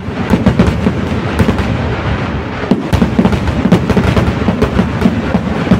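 Fireworks barrage: a rapid, unbroken string of loud firecracker bangs and cracks, several a second, over a continuous rumble.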